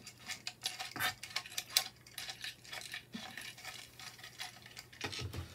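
Irregular light clicks and clatter of 3D-printed plastic winch parts being handled and fitted together: the spool with its gear being worked into its mounting bracket. The sharpest clicks come about a second in and just before two seconds.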